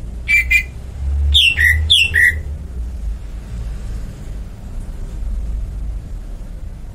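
Bird calls: two short harsh squawks, then two calls that drop sharply in pitch about half a second apart, over a low rumble.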